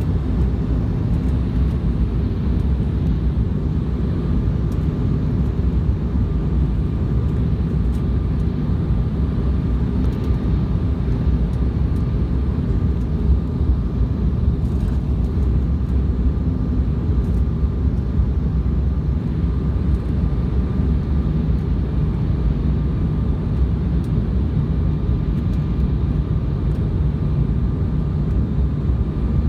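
Steady low roar of an airliner's engines and rushing air heard from inside the passenger cabin, with a faint steady whine that comes in about halfway through.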